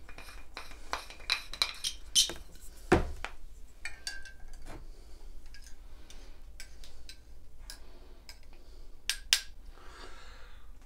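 A spoon clinking and knocking against a ceramic mug while a drink is stirred, in an irregular run of sharp clinks with a few louder knocks.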